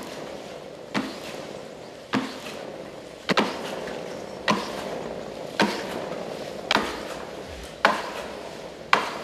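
Skimill ski-treadmill driven by double-poling strokes: a sharp knock at each stroke, about once a second, each followed by a short rushing noise that fades as the belts run on.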